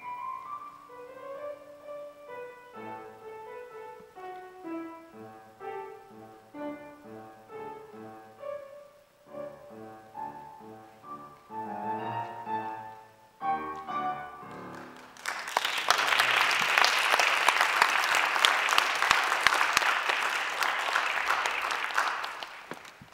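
Solo grand piano played, its notes stopping about 15 seconds in, followed by a long burst of audience applause.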